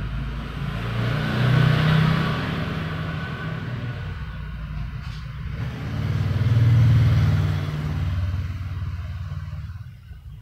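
A motor vehicle engine running nearby with a low rumble that swells twice, about two seconds and about seven seconds in, then fades away near the end.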